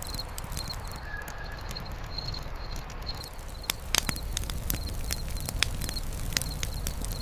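Wood campfire crackling, with sharp irregular pops and snaps over a low steady rumble of the burning fire. A small high chirp repeats steadily in the background.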